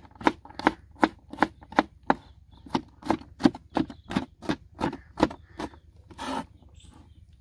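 Kitchen knife chopping garlic finely on a board: quick, even strokes about three a second that stop about six seconds in, followed by a brief scraping sound.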